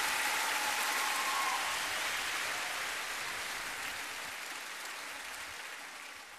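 Audience applauding, the applause fading out toward the end.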